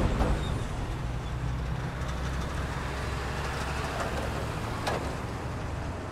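Freight train rolling slowly past: a steady low rumble of the cars on the rails, with a couple of sharp clanks, one right at the start and one about five seconds in.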